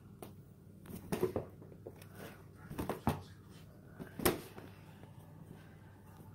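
A cat scrabbling at a carpet: scattered scratches and soft knocks, the loudest about four seconds in.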